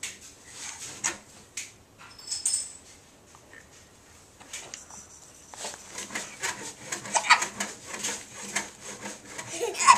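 Johnny Jump-Up baby bouncer's spring and door-frame clamp clinking and creaking as a baby bounces in it: scattered clicks at first, a quieter spell in the middle, then quick, dense clicking through the second half.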